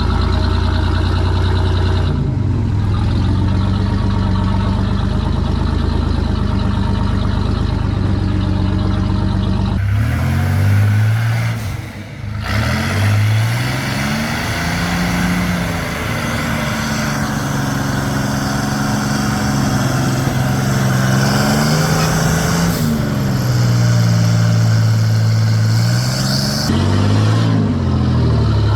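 Off-road 4x4's engine running steadily, then revving up and easing off again and again as it works over the trail.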